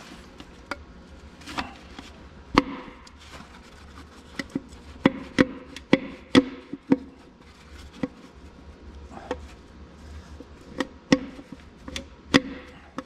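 Irregular sharp metal clinks and knocks from a connecting rod being worked on the crankshaft inside an open Oliver 1600 tractor engine block, some of them with a brief metallic ring.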